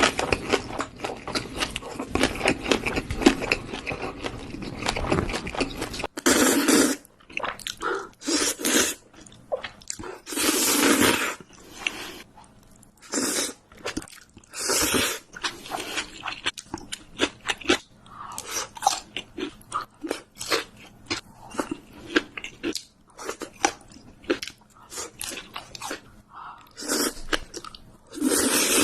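Close-miked eating of Korean noodles: dense chewing for about the first six seconds, then separate wet chews with several longer slurps of noodles in between.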